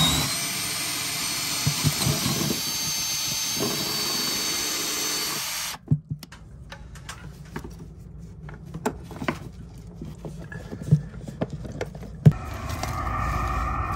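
Cordless drill boring a hole through plywood with a wood bit, the motor whining steadily for about six seconds and then stopping abruptly. A few scattered knocks and clicks follow, and near the end a low steady rumble starts.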